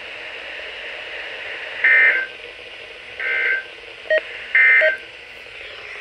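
NOAA Weather Radio's EAS digital data tones (SAME): three short, harsh bursts about 1.4 s apart, the End of Message signal that closes the severe thunderstorm warning. A short beep comes just before the third burst, over steady broadcast hiss.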